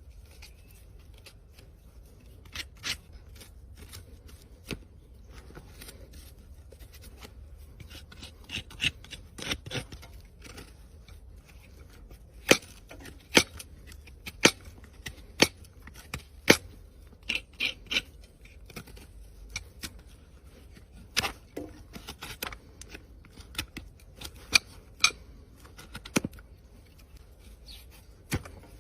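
Farrier's hoof-trimming tools cutting a horse's hoof: irregular sharp snips and clicks, with a run of louder cuts about once a second through the middle.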